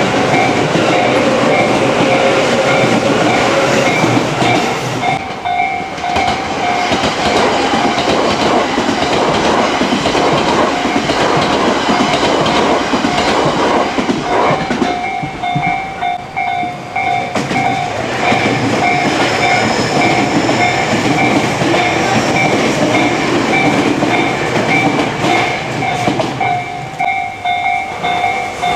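Electric trains rolling over a level crossing, wheels clattering over the rail joints. A Japanese level-crossing alarm rings its repeating 'kan-kan' tone over the train noise for most of the time.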